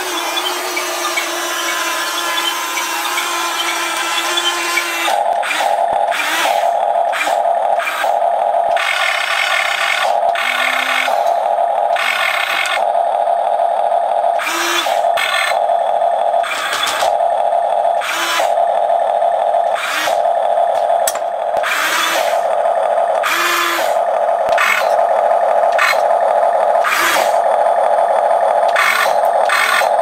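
Huina remote-controlled toy excavator working: its small electric gear motors whir in many short runs, each about a second, starting and stopping as the tracks, arm and bucket move, over a steady hum.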